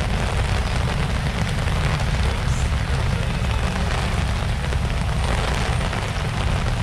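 Heavy typhoon rain pouring steadily onto an umbrella and the wet pavement, a dense hiss with a deep, constant rumble underneath.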